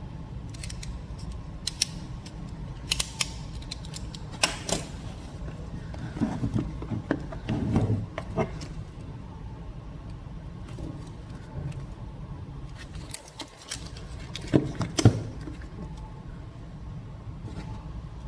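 A smartphone retail box being handled and opened: scattered clicks, scrapes and rustles of cardboard and packaging, with louder clusters of handling noise a little before halfway and about three-quarters through, over a low steady hum.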